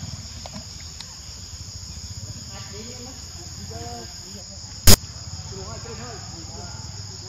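Insects calling in a steady, high-pitched chorus, with one sharp, loud click about five seconds in.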